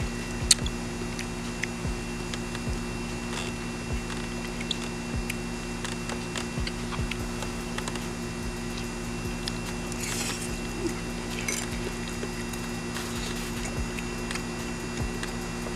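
A person eating: light clicks of a metal fork against a ceramic plate and quiet chewing, over a steady low hum.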